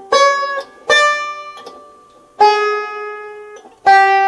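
Banjo string picked one note at a time, four plucks about a second apart, each left to ring out. It is being checked for an unwanted noise on the open string, which the player thinks comes from the string binding in its nut slot.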